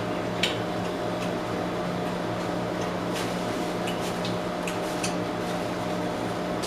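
Steady mechanical hum over a low hiss, with a few faint short clicks scattered through it.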